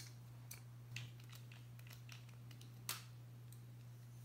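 Faint, scattered small clicks and taps from a Civivi Elementum folding knife with titanium scales and a small driver being handled while its pivot screw is adjusted to centre the blade. The loudest click comes about three seconds in, over a low steady hum.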